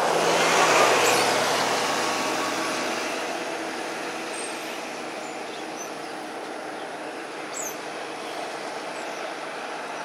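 A motor vehicle passing: a swell of engine and road noise, loudest about a second in, then fading over a few seconds into steady background traffic.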